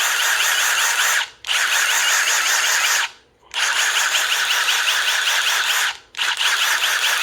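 Brand-new Milwaukee M18 Fuel 2853-20 Gen 3 impact driver running free with no load, at a steady speed, in long trigger pulls that stop sharply about a second in, for a longer pause around three seconds, and again near six seconds. This is the motor being warmed up to check for speed changes on its own and for a failing electric brake; so far it holds its speed and stops promptly.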